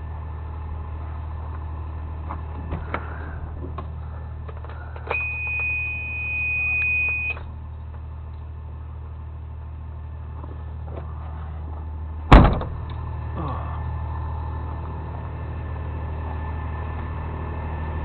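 A truck engine idling steadily, with a high steady tone sounding for about two seconds a third of the way in and a single loud clunk about two-thirds through.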